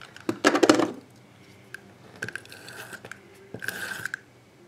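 Adhesive tape runner drawn along a strip of paper in three short rasping strokes, the first and loudest near the start, with paper handling clicks in between.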